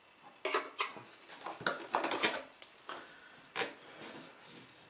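Sleeved power-supply cables and their plastic connectors being unwrapped and pulled about by hand: irregular rustling with small plastic clicks and rattles, loudest about two seconds in and again near the end.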